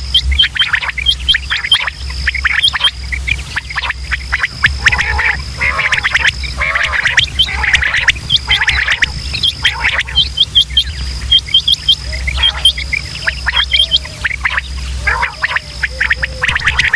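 Quail calling over and over: short sharp notes in quick groups of two or three, overlapped by other bird calls. A thin high steady tone comes and goes above them, with a low hum underneath.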